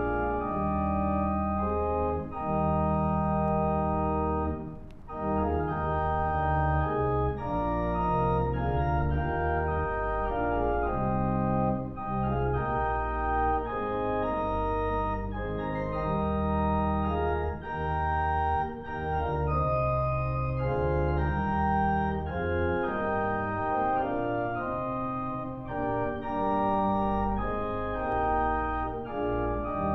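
Church organ playing slow sustained chords over a held bass line, the chords changing every second or two, with a short drop in volume about five seconds in.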